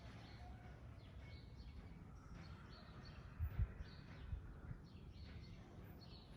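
Birds chirping in short, scattered calls over a steady low rumbling background noise, with a few low thumps about three and a half to four and a half seconds in.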